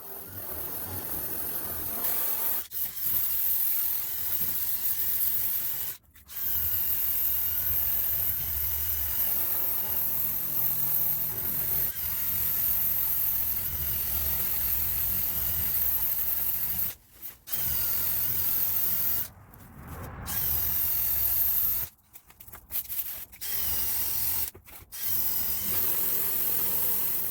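Wire brush on a drill scrubbing surface rust off a steel car trunk lid, running in long stretches with several brief pauses.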